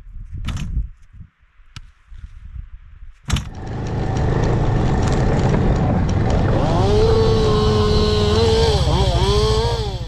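Two-stroke chainsaw starting about three seconds in and running at high revs. Its pitch dips briefly near the end as it bites into wood.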